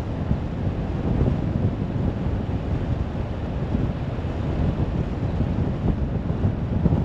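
Car driving at speed on a motorway: a steady low rumble of tyre and wind noise.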